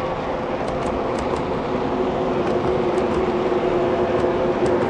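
O-scale three-rail model freight cars rolling along the track: a steady rumble of wheels on rails with a few faint light clicks, slightly louder near the end.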